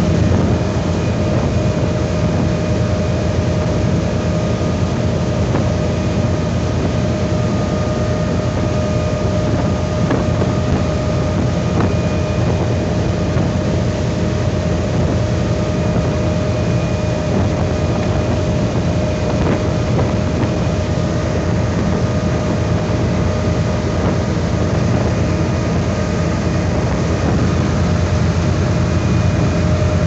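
Motorboat engine running steadily at cruising speed: a constant low drone with a steady whine over it, and water churning in the wake.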